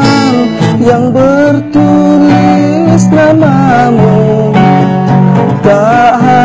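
A song: a singer's voice carrying a wavering melody over guitar accompaniment, sung in Indonesian.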